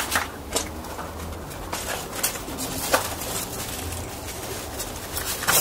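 A pigeon cooing in the background, with rustling and several sharp clicks from cucumber vines and leaves being handled as a cucumber is picked.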